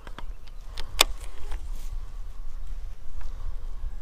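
Baitcasting reel being handled, giving a few sharp clicks, the loudest about a second in, over a steady low rumble.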